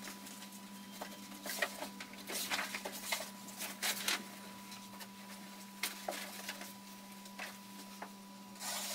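Scattered light knocks, footsteps and rustles as a person moves about and handles heavy sailcloth on a worktable, spaced irregularly, over a steady low hum.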